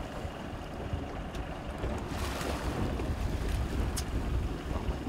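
Wind buffeting the microphone and waves washing against the hull of a small fishing boat at sea, with a few short clicks about a second and a half, two and four seconds in.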